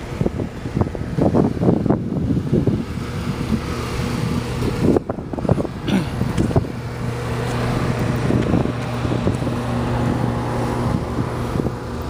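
Wind buffeting the microphone in gusts, then, from about five seconds in, a steady low machine hum with a fixed pitch.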